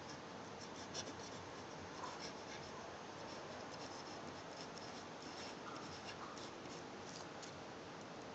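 Fountain pen nib scratching on paper as block letters are written: faint, short scratchy strokes with small pauses between letters, over a steady low hiss.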